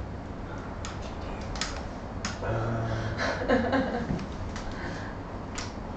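Scattered light clicks and taps, about five in all, with faint murmured voice sounds in the middle.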